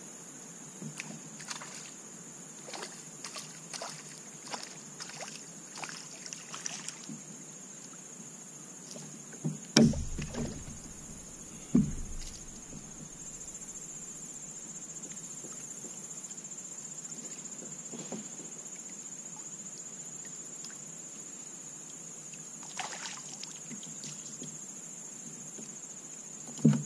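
Steady high drone of insects such as crickets. Scattered light clicks in the first several seconds, and a few loud hollow knocks on the plastic kayak hull about ten and twelve seconds in and again near the end.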